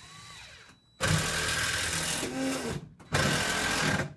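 A small electric motor, like a power tool's, running at a steady speed in two loud bursts: one starting about a second in and lasting nearly two seconds, then a short pause and a second burst of about a second.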